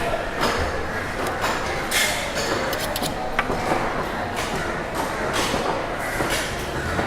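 Factory interior ambience: a steady low hum of machinery with frequent irregular metallic knocks and clanks, echoing in a large hall.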